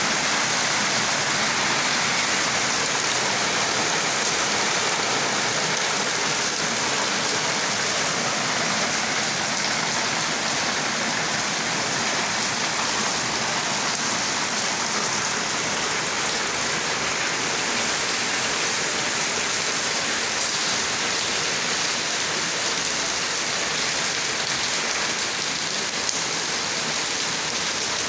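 Rain falling steadily: an even hiss that keeps up without a break.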